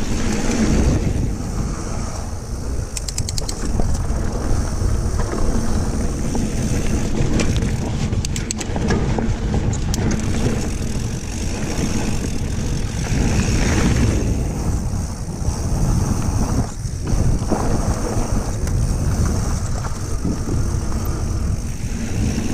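Mountain bike riding down a dirt flow trail, with wind buffeting the camera microphone and the tyres rumbling steadily over the ground. Short runs of rapid ticking come through about three seconds in and again around eight to ten seconds.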